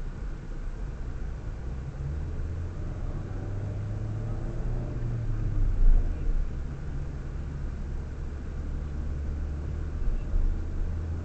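Car engine and road rumble heard from inside the moving car's cabin: a steady low drone whose engine note climbs for a few seconds and then drops back about halfway through, with a single thump at that point.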